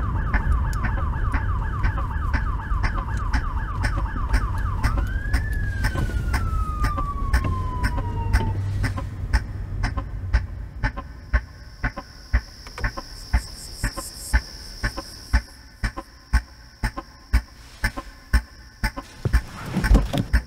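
Police car siren yelping fast, then one last wail that rises and falls away and cuts off about eight seconds in, as the low engine rumble beneath it also stops: the cruiser pulling a vehicle over. After that, a regular ticking about twice a second and a steady high trill.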